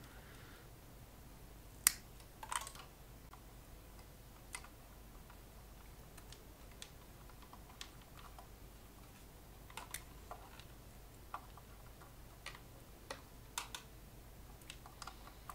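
Faint, scattered small clicks and taps of twisted heater wire being handled and fitted at a tube socket on a metal amplifier chassis, with a sharper click about two seconds in, over a steady low hum.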